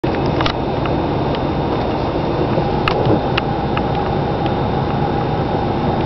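Inside the cab of a Dodge Ram 3500's 6.7-litre Cummins straight-six turbo-diesel pickup, running steadily at low revs in stopped traffic, with a steady blower fan. A few light clicks come through, the clearest about half a second and about three seconds in.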